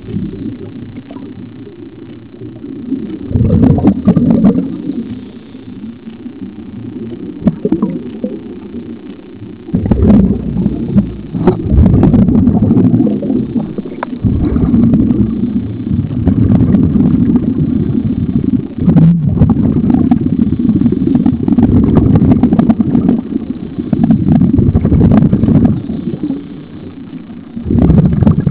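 Muffled low rumble of scuba regulator exhaust bubbles, heard underwater, coming in long bursts with quieter gaps between them.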